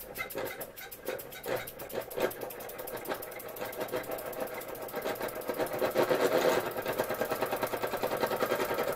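Linemar J-2734 toy steam engine starting suddenly and picking up speed, a rapid run of clattering beats that gets faster and louder. The loosely fitted tin parts rattle as it runs.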